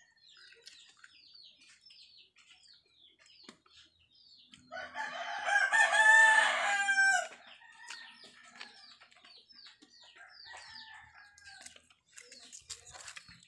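A rooster crowing once, loudly, starting about five seconds in and lasting about two and a half seconds, with a fainter crow around ten seconds in. Short, high, falling chirps repeat throughout.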